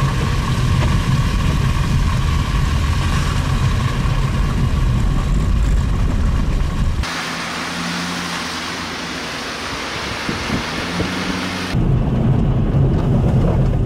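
Road noise from inside a vehicle driving on a slushy, snow-covered highway: a loud, steady low rumble of tyres and engine. About seven seconds in it cuts abruptly to a quieter, hissier stretch with little rumble, and near the end it cuts back to the rumble.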